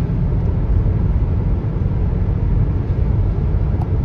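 Steady low rumble of a car driving at road speed, heard from inside the cabin, with its tyres running on rain-wet asphalt.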